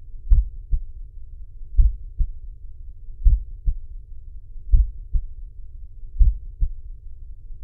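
Recorded normal heart sounds, a 'lub dub' pair repeating five times about a second and a half apart. Each pair is S1, the closing of the mitral and tricuspid valves, followed by the slightly weaker S2, the closing of the aortic and pulmonary valves.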